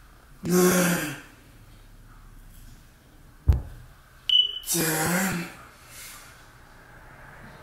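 A man counting reps aloud, "nine" and then "ten", with one sharp thud about three and a half seconds in as the hex dumbbell touches down on the floor behind his head at the bottom of a straight-arm pullover. A short high beep follows just after the thud.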